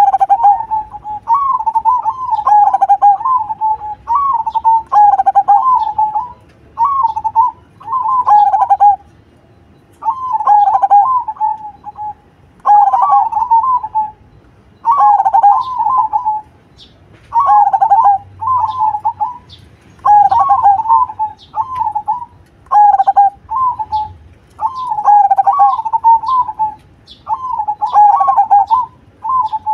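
A caged zebra dove (perkutut) cooing over and over: rolling, trilled coo phrases repeated every second or two with short pauses between them.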